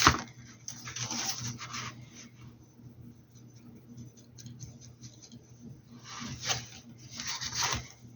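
Paintbrush strokes rubbing and scratching across the hat in three spells, after a sharp click right at the start.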